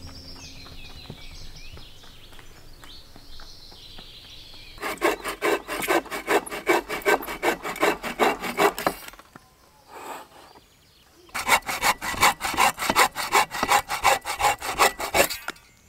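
Hand saw cutting through wood in quick back-and-forth strokes, about four a second. It comes in two bouts of about four seconds each, with a short pause between them.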